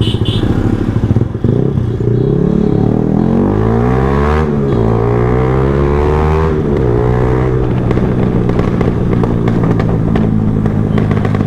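Yamaha R15M's single-cylinder engine accelerating through the gears: the exhaust note rises, drops at a gear change about four and a half seconds in, rises again and drops at another shift, then holds a steady note at cruising speed.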